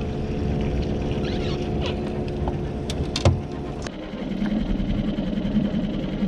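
Outboard motor of about 90 hp running steadily at low trolling speed, with a few sharp knocks about three seconds in. Its tone changes about four seconds in.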